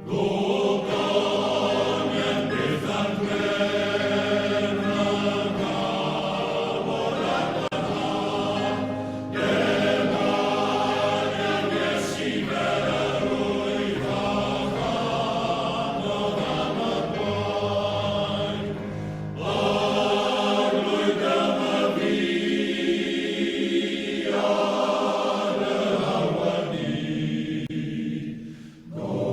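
Male voice choir singing in harmony, in long held phrases with short breaks between them.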